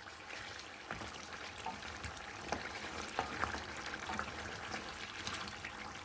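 Bone-in mutton sizzling and bubbling in oil and broth over high heat, with scattered pops and crackles, as the last of the cooking liquid boils off and leaves only the oil.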